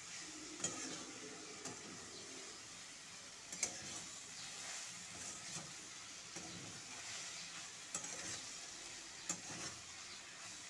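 Spatula stirring and scraping fenugreek leaves and brinjal pieces around a metal kadai, over a light, steady sizzle of frying. Now and then the spatula clicks sharply against the pan.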